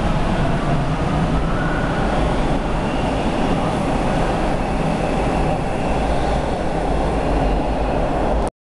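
TTC subway train pulling out of the station alongside the platform: a steady loud rumble of wheels and motors with a faint rising whine as it picks up speed. It cuts off abruptly near the end.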